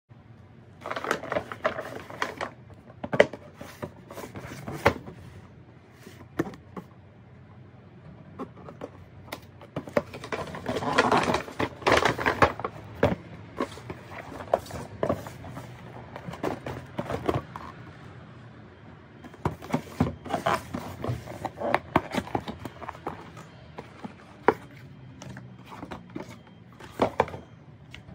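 Cardboard shoeboxes being handled and opened on a wooden floor: scattered knocks and taps as boxes and lids are moved and set down, with stretches of scraping and rustling.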